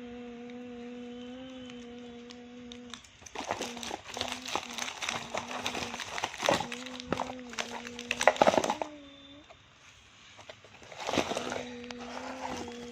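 A person humming a steady low note while plastic candy packaging crinkles and rustles in the hands, in a long stretch in the middle and a shorter one near the end.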